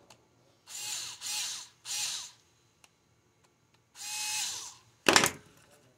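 A small power drill running in four short whirring bursts, each spinning up and down, as it backs out the screws on an angle grinder's wire terminals. A sharp clack comes about five seconds in.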